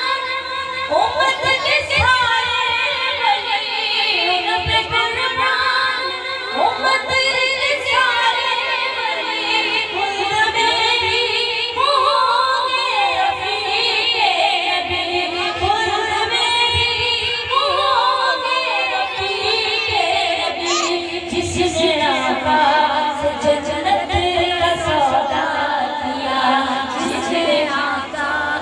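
A woman singing a naat, an Urdu devotional song, solo. Her long, wavering notes are richly ornamented.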